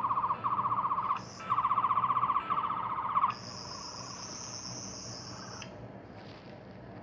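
Sonic screwdriver replica's built-in speaker playing its sonic sound effect: a fast-warbling electronic buzz in several pulses for about three seconds, switching to a higher steady whine that stops about six seconds in.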